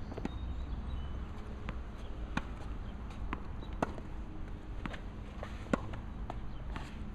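Tennis ball being hit with rackets and bouncing on a hard court in a rally: a handful of sharp knocks about one to two seconds apart, the loudest near the end, over a steady low rumble.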